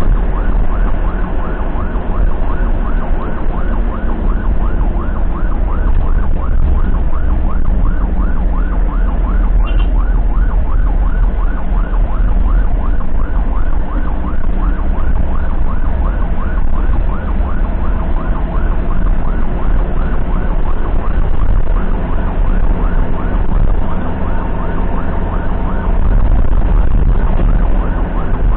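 Ambulance siren on a fast yelp, rising sweeps repeating several times a second, over the heavy low rumble of the moving ambulance.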